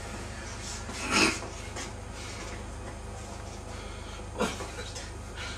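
Steady low hum with two short noises, one about a second in and another near the end.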